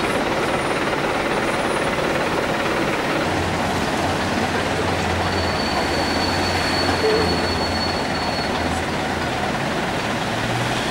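Steady noise of road traffic and parked coaches' engines running, with a low engine hum joining about three seconds in and a thin high whistle for a few seconds in the middle.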